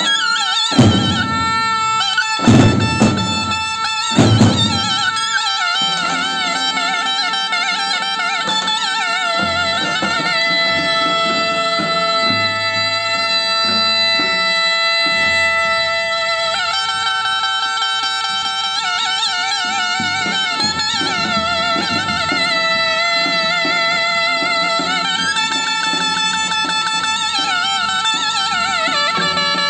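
Two zurnas playing a folk tune, one holding a steady note under the other's quick, ornamented melody. A few heavy davul drum strokes land in the first five seconds.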